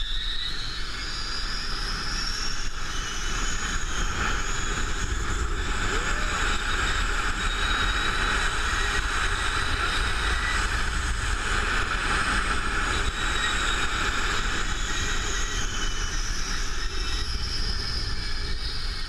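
Zipline trolley's pulley wheels running down the steel cable, a whine that climbs in pitch as the ride picks up speed, holds high, then drops near the end as it slows. Wind rushes and buffets the helmet-mounted camera throughout.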